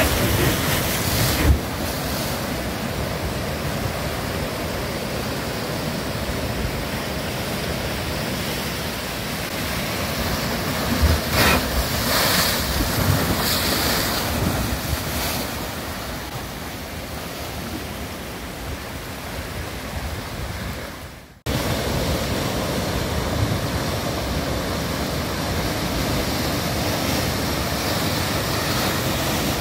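Atlantic surf breaking over rocks and washing up the shore, a steady rushing with a few louder crashes. The sound briefly drops out about two-thirds of the way through, then the surf carries on.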